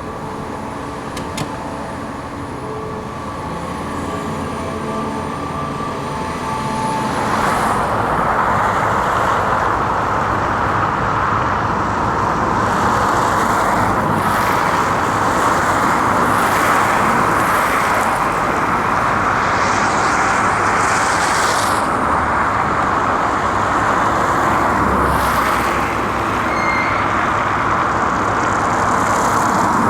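Diesel engine of heavy construction machinery running steadily; about seven seconds in the sound grows louder and a steady rushing noise joins it and holds.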